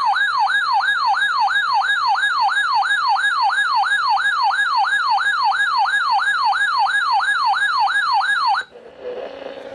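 Electronic siren-style alert tone: a loud, fast warbling yelp sweeping up and down about three times a second, cutting off abruptly near the end. It works as an attention signal announcing a weather alert.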